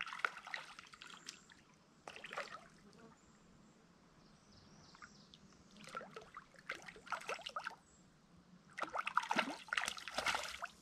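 Hooked brook trout splashing at the water's surface as it is reeled in, in a few short, irregular bouts of splashing with quiet gaps between.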